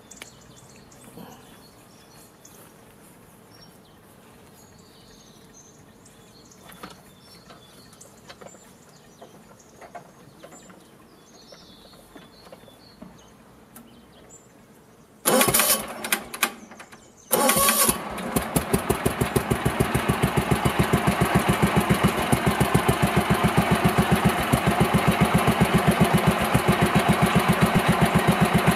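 Old Yazoo 60-inch riding mower's engine being started: after a stretch of quiet outdoor background, two short loud bursts of starting come about fifteen seconds in, and then the engine catches and runs steadily with an even pulsing beat.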